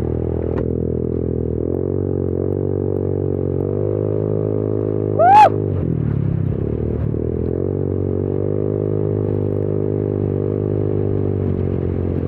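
Rusi RFI 175 motorcycle with an open-pipe exhaust running steadily under way, its engine note stepping up and down a little with the throttle. About five seconds in there is a brief, loud, rising whoop.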